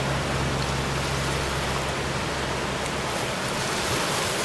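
Steady wash of ocean surf on a beach, an even hiss of breaking water. A low hum under it fades out about a second and a half in.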